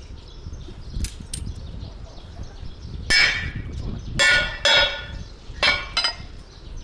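Metal striking metal: about five loud, ringing clangs in the second half, each ringing briefly, after two light clicks about a second in.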